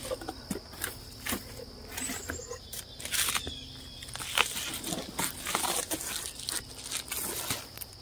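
Hands taking the lid and a foil-covered inner cover off a wooden beehive box: scattered knocks, scrapes and crinkling throughout, over a steady high chirring of insects.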